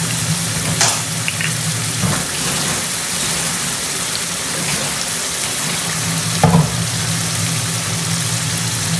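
Chicken pieces and green chilies frying in shallow oil in a wok, a steady sizzle, over a low steady hum. A few short knocks, the loudest about six and a half seconds in.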